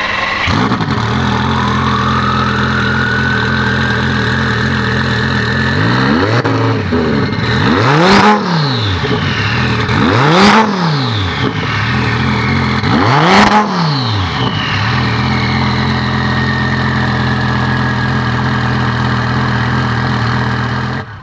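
Twin-turbo Lamborghini Gallardo V10 idling, blipped three times in the middle, each rev rising and dropping back to idle. After each rev a high whine falls away as the turbos spool down.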